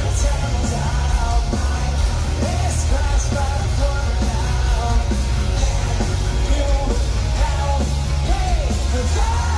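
Live rock band playing loud through a festival PA, heard from within the crowd: a singer's voice over guitars and heavy, booming bass.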